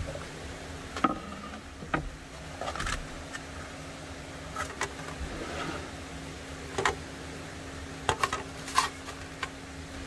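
Small electric desk fan humming steadily, with scattered sharp clicks, taps and crinkles of plastic food packaging and a wooden cutting board being handled on a wooden shelf.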